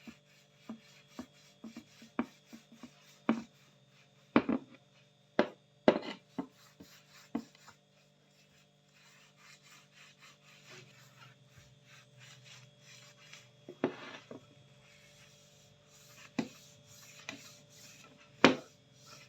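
A series of sharp knocks on wood, then a long run of hand filing or rasping strokes on wood, broken by a few louder knocks.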